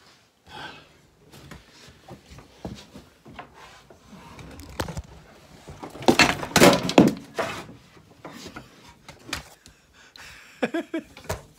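A camera knocked over, clattering and thumping against the bench and floor in a burst about six seconds in, amid scattered knocks of tools being handled.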